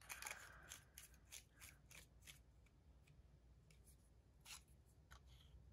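Faint small clicks and rubbing of a Lamy Safari fountain pen's plastic barrel being screwed back onto its grip section. There is a quick run of clicks over the first two seconds or so, then a couple more near the end.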